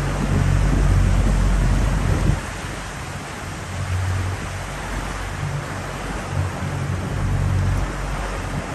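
50 hp Yamaha outboard ticking over at low revs, a low hum that swells and fades and is strongest in the first two seconds. A steady hiss of sea water washing around the hull and the rock of a sea cave lies over it.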